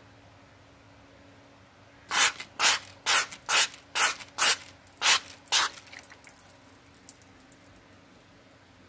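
A trigger spray bottle squirting liquid onto a nylon rain jacket: eight quick hissing pumps, about two a second, starting a couple of seconds in.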